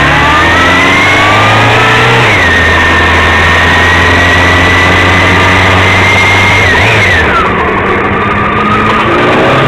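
Motorcycle engine heard from the riding bike: the revs climb over the first two seconds, change quickly and settle into a steady pull, then drop to a lower steady note about seven seconds in.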